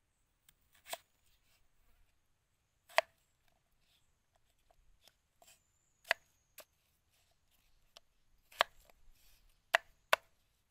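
Large kitchen knife cutting through winter melon onto a thick round wooden chopping board: about seven separate sharp knocks of the blade striking the wood, unevenly spaced and coming closer together near the end.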